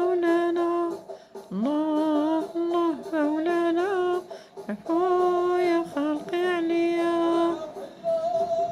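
A solo male voice sings an Aissawa Sufi chant in phrases of long held notes with ornamental turns, breaking off every second or so between phrases.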